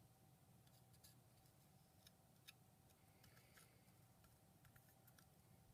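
Near silence with a few faint, scattered clicks from small parts of a vape box mod being handled.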